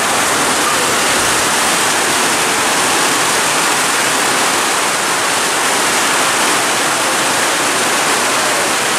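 Heavy rain pouring down in a downpour, a loud, steady, even hiss.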